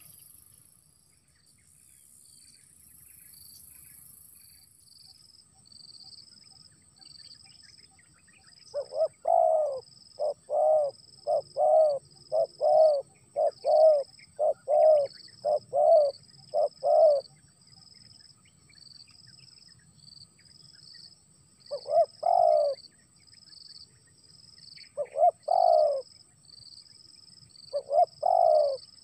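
Spotted dove (tekukur) cooing: a quick run of about nine coos roughly a second apart, then single coos every few seconds. A steady, even high-pitched chirping pattern runs underneath throughout.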